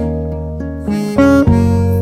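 Background music: acoustic guitar with a sustained harmonica-like melody over a steady bass, the notes changing every fraction of a second.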